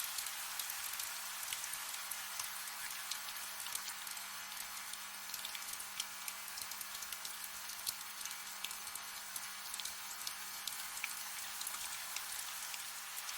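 Soft steady rain, a constant hiss with scattered individual drops pattering close by.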